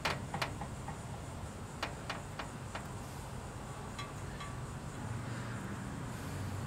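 Light clicks of a wire and a butt connector being worked together by hand, a handful in the first three seconds, over a steady low hum. A faint high ringing tone sounds about four seconds in.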